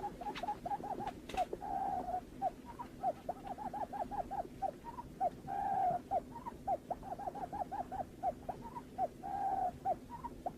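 Barred buttonquail call, of the kind used as a lure: a fast run of short, low whistled notes, several a second. A longer drawn note comes three times, about every four seconds.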